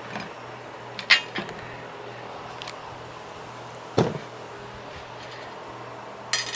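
Metal hand tools and steering-gear parts clinking against each other in a few separate sharp strikes, the loudest about a second in, with a duller knock about four seconds in. A steady low hum runs underneath.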